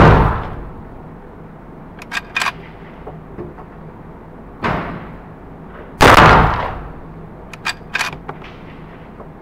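Uberti 1873 lever-action rifle in .45 Colt firing inside an indoor range: a shot at the start and another about six seconds in, each with an echoing tail. About two seconds after each shot come two quick metallic clacks of the lever being worked, and a softer bang falls between the shots.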